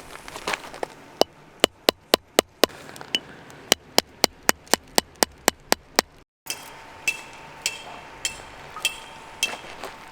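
A rapid series of sharp knocks, about two or three a second. After a brief break, slower knocks follow with a slight ring.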